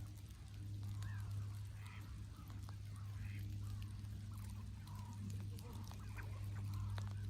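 Waterfowl, ducks and swans, calling with a string of short calls, over a steady low hum.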